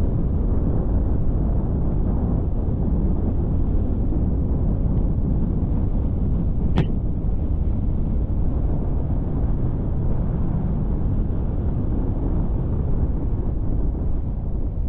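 Steady low rumble of a vehicle driving through a long road tunnel: tyre and engine noise. A single sharp click about seven seconds in.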